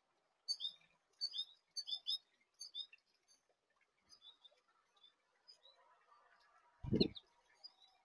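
Small songbirds chirping at a seed feeder, a quick run of short high chirps in the first few seconds, then fainter scattered chirps. A single low thump about seven seconds in is the loudest sound.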